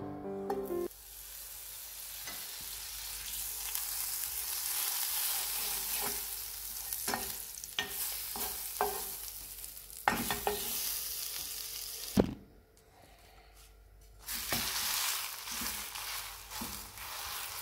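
Butter sizzling in a hot non-stick frying pan, then a green spinach pancake frying, with scattered knocks of a utensil against the pan. The sizzling stops for about two seconds two-thirds of the way through, then resumes.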